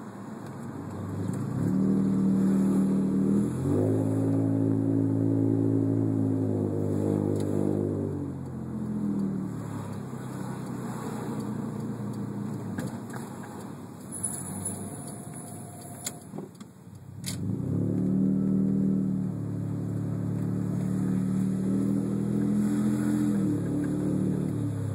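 Subaru SVX's flat-six engine pulling away and accelerating, its pitch climbing and dropping back as it shifts. Around the middle it slows, with a brief thin high-pitched squeal, typical of the brake squeal this car has, and a couple of clicks. Then it accelerates again.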